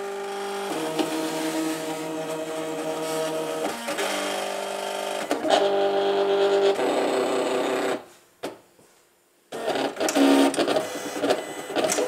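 Silhouette Cameo electronic cutting machine running a job: its motors whine in steady tones that change pitch every second or so as the carriage and rollers move the paper back and forth. It stops briefly about eight seconds in, then starts again.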